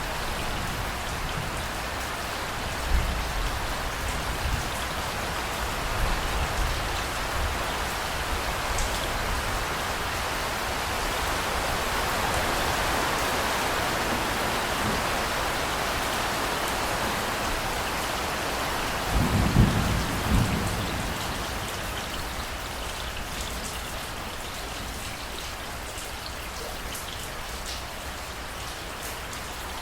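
Steady heavy rain pouring, with low rumbles of thunder. The loudest rumble comes about two-thirds of the way through.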